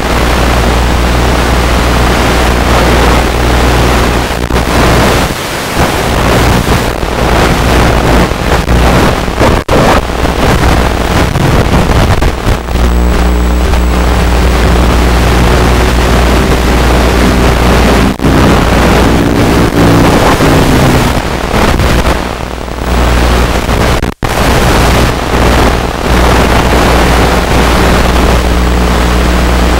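Wind rush on the onboard camera's microphone mixed with the buzz of the UMX Radian's electric motor and propeller. The motor's pitch shifts up and down partway through, and the sound cuts out briefly a few times.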